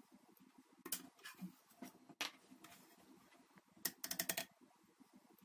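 Faint metal-on-metal clicks of a steel ladle knocking and scraping against a stainless steel pot while scooping up thick quince jam: a few separate clinks, then a quick run of clicks about four seconds in.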